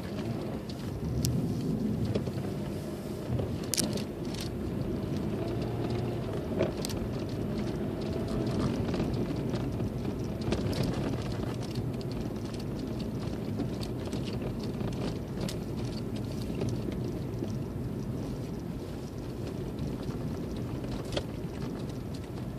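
A car driving through deep snow: a steady low rumble of engine and tyre noise, with scattered sharp knocks and clicks.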